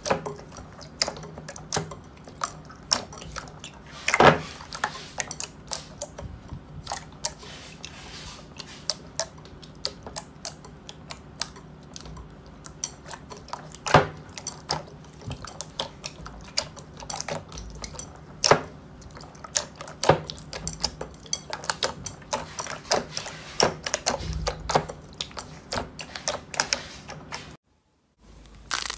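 Thick fluffy slime being kneaded, pressed and stretched by hand in a glass bowl, giving a dense, irregular run of wet clicks and pops, with a few louder pops scattered through. The sound cuts out briefly near the end.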